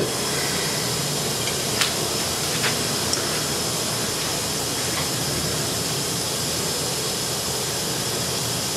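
A steady, even hiss, with a few short clicks in the first three seconds.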